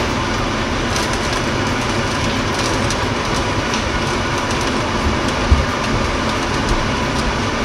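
Steady rushing, rumbling noise of kitchen equipment running on the stovetop, with a single knock about five and a half seconds in.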